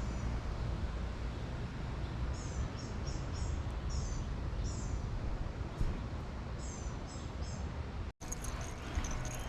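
A small bird chirping in quick groups of short, high, falling notes over a steady rushing background noise. The sound breaks off abruptly about eight seconds in.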